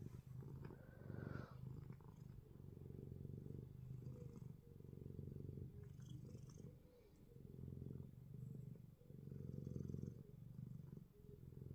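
Tabby-and-white domestic cat purring softly and steadily, the purr swelling and fading every couple of seconds, a sign that she is content.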